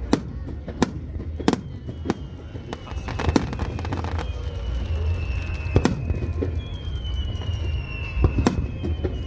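Aerial fireworks bursting over a harbour: a string of sharp bangs, about one or two a second, over a steady deep rumble of booms.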